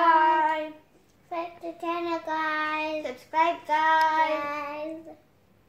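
A young girl singing a drawn-out sung goodbye in long, steady held notes: the first note fades out within the first second, and two more phrases follow after a short pause.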